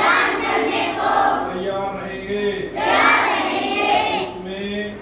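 A group of schoolchildren and adults reciting a pledge in unison, their many voices blending into a chant-like cadence in two long phrases, the second starting about three seconds in.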